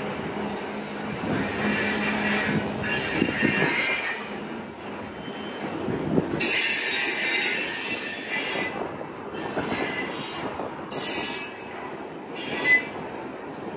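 Iron ore train's freight wagons rolling slowly, steel wheels squealing against the rails in several separate stretches over a steady rumble, with a short sharp squeal about a second before the end.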